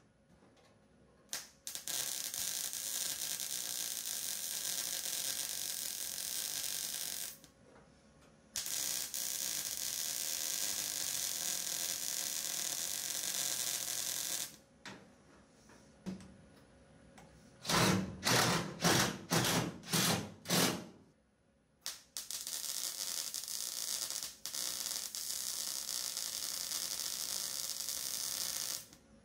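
MIG welder welding a steel shifter-mount bracket to a car floor pan: a steady hiss in three runs of several seconds each, with short pauses between. Around the middle come about six short, louder bursts.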